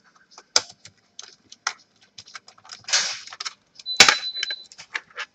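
Irregular light clicks and short scrapes of a screwdriver and small screws being worked out of a laptop's plastic bottom case, one metal click about four seconds in ringing briefly.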